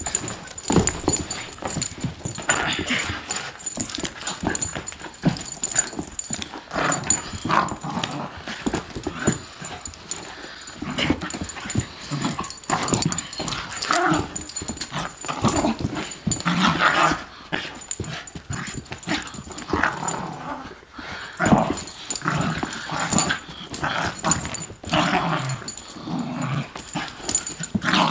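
Beagle puppy vocalizing over and over in short, irregular calls, whines, yips and small growls, as it excitedly greets its owner.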